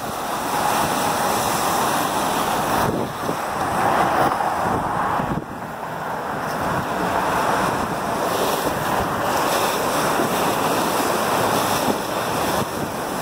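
Swollen floodwater of a river in flood rushing and churning in turbulent rapids, a steady loud wash of water noise, with wind buffeting the microphone.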